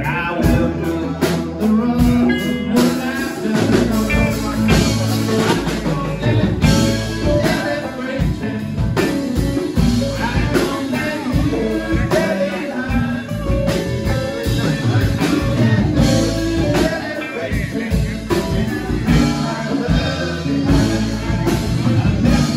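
Live rock band playing: electric guitars, keyboard and drums with a steady beat, and a voice singing over them.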